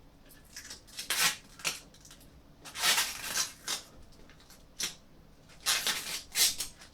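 Hands handling a graphics card and PC parts: a series of short scrapes, rustles and light clicks, the loudest about three seconds in and again near the end.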